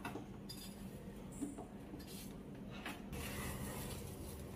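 Faint rustling and scraping of gloved hands handling loose potting soil, with a few short knocks, the sharpest about a second and a half in.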